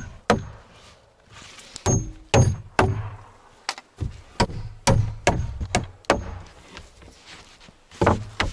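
Hammer blows driving a fastener into the wooden frame of a workbench, about a dozen sharp strikes, some with a brief metallic ring, with a short pause before the last two.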